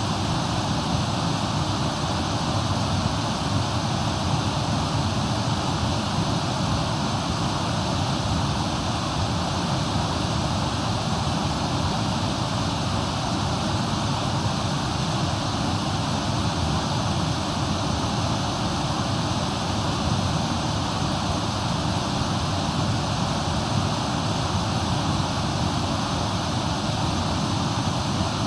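Waterfall and river rushing, a steady, unbroken roar of water.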